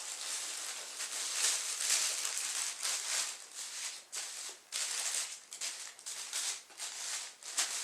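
Packing peanuts and plastic packaging rustling and crinkling as hands dig through a shipping box, in uneven bursts with short lulls.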